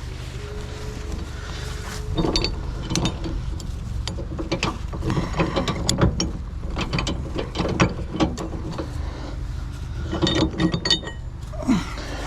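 Metal recovery rigging being handled: irregular clicking and clanking with ratchet-like clicks, starting about two seconds in, over a steady low hum.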